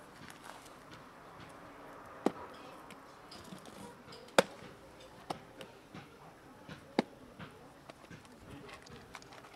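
Clip-lid plastic food container being unlatched and opened: a series of sharp plastic clicks, the loudest about four seconds in, as the lid is worked loose and lifted off a box of dry cat food.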